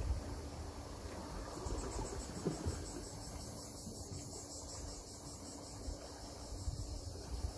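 Insect trilling in rapid, even high-pitched pulses, starting about a second and a half in, over a low rumble of wind on the microphone.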